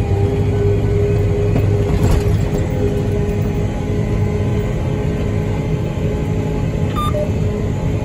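Combine harvester running steadily while cutting wheat, heard from inside the cab as an even drone with a constant low hum. A brief high beep sounds about seven seconds in.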